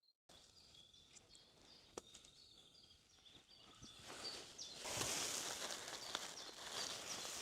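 Faint outdoor ambience with birds chirping in the background, a single click about two seconds in, then a rustling noise that grows louder from about four seconds in.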